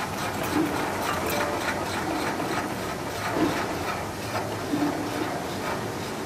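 Arterki MF127B saw blade grinding machine running, a steady hiss under a regular series of short rasping strikes, about two to three a second, as its grinding wheel works along the teeth of a circular saw blade.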